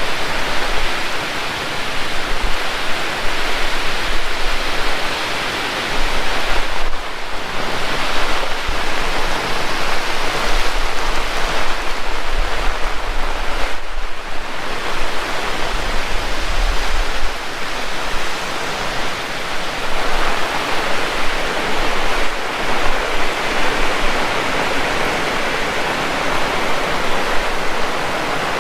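Heavy rain falling steadily, a dense, even hiss, with wind rumbling on the microphone in stretches.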